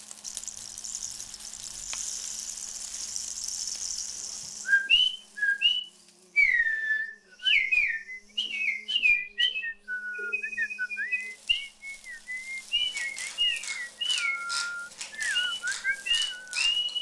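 A steady hiss for the first few seconds, then a string of short whistled notes sliding up and down, a person whistling bird-like calls. Towards the end a quick run of rattling clicks joins in.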